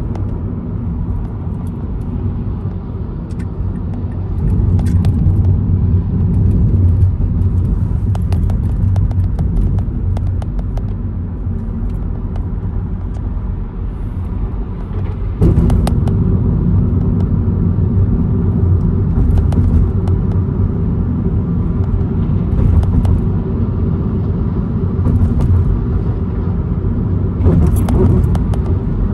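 Car interior road noise while driving: a steady low rumble of tyres and engine, with scattered faint ticks. The rumble steps up suddenly about halfway through and stays louder.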